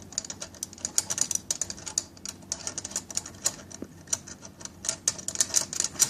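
Allen key working the seat clamp bolt of a Puky balance bike loose: a run of small, irregular clicks, several a second, as the key is turned and repositioned in the bolt head.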